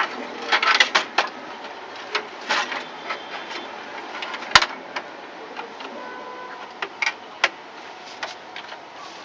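Scattered clicks and taps of a desktop computer's power supply cables and connectors being handled and plugged in, with one sharp click about four and a half seconds in.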